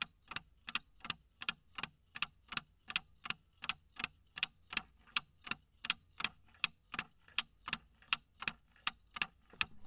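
Clock-ticking countdown timer sound effect: a steady, even tick a little under three times a second that runs while the answer timer counts down, then cuts off when the time is up.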